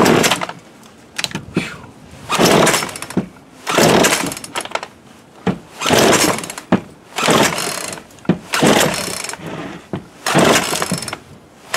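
Pull-starting a Poulan Pro PP4218A 42cc two-stroke chainsaw: about seven quick yanks on the recoil starter cord, one every second and a half or so, each a rattling burst of the cord and the engine cranking over. It does not catch and never settles into running.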